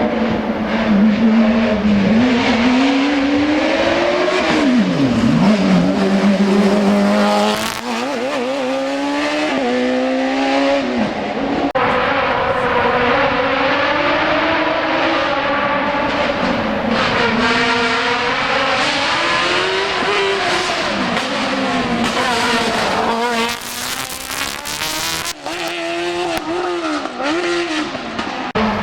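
Race car engine at full effort through a slalom course, its pitch climbing and dropping again and again as it accelerates, shifts and lifts off for the gates. The sound changes abruptly a few times.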